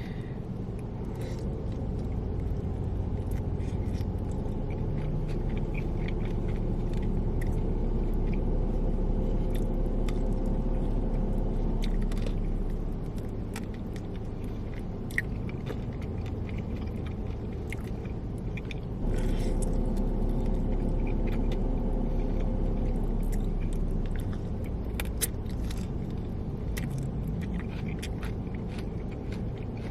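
Chewing and biting into chicken wings: scattered small wet, crunchy clicks. These lie over a steady low rumble with a hum in it, which gets louder for a few seconds about two-thirds of the way in.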